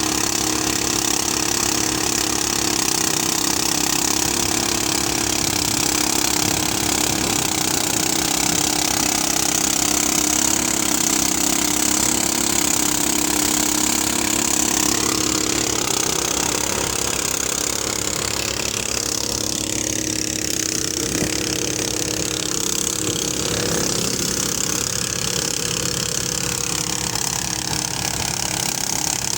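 Motorized rice threshing machine running steadily, engine and threshing mechanism together, with a slight shift in its sound partway through.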